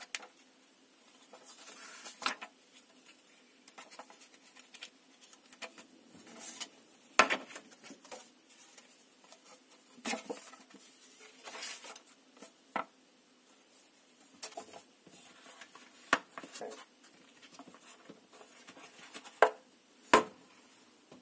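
Paper instruction booklet and leaflets rustling as pages are turned and handled, with scattered sharp taps and knocks against a cardboard box. The loudest knocks come about seven seconds in and twice near the end.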